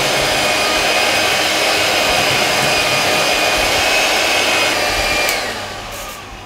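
Electric hand mixer running steadily, its beaters whipping egg yolks and sugar. About five seconds in it is switched off and the motor's whine falls away as it winds down.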